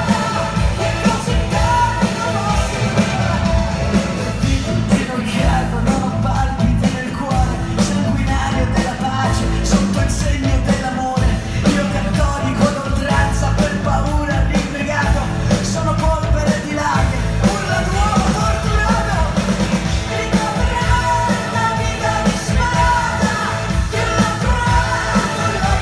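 Live rock band playing loudly, a woman singing lead over a steady drum beat, bass and guitars, heard from the audience.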